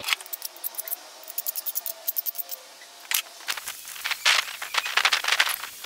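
Light rapid clicks, scrapes and rustling of a cut steel bracket being handled and test-fitted down in a car's footwell, with one sharper knock about three seconds in.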